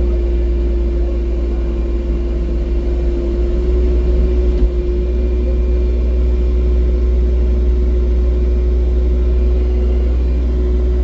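Excavator's diesel engine running steadily under work, a constant low rumble with a steady hum above it; a brief knock about four and a half seconds in.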